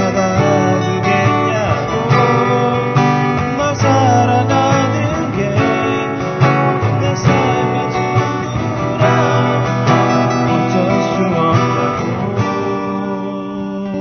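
Acoustic guitar being strummed in a live song performance, with a wavering melody line over the chords; the sound thins out near the end.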